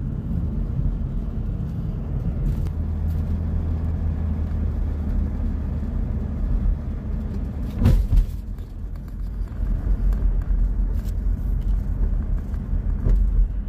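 Steady low rumble of a car's engine and tyres heard from inside the cabin while driving, with one sharp thump about eight seconds in.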